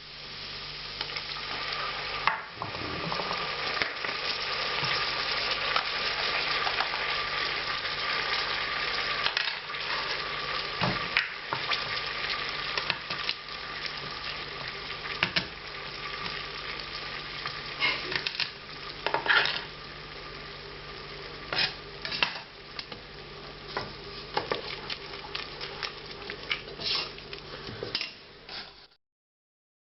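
Onions sizzling as they sauté in butter in a pan, stirred with a utensil that gives scattered clicks and scrapes against the pan. The sizzle is steady, a little softer in the second half.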